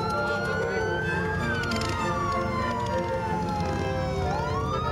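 Police siren wailing: it rises, falls slowly over about three seconds, then starts to rise again near the end. Underneath is the low rumble of motorcycle engines.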